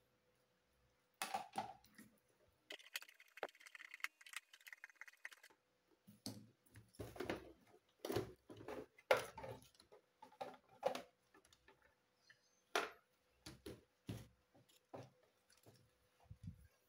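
Scattered clicks and knocks of a screwdriver and the plastic casing of a fetal doppler being handled while its back screws are undone and the case opened, with a short scratchy stretch about three seconds in.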